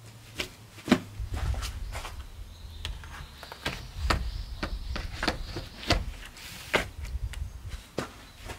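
Knocks and clacks of a glass sliding window sash being handled and set into its frame's track, about a dozen separate sharp knocks with a faint high scrape partway through.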